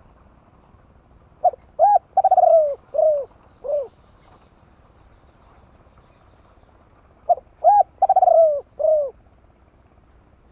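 Spotted dove cooing: two phrases of about five notes each, a few seconds apart.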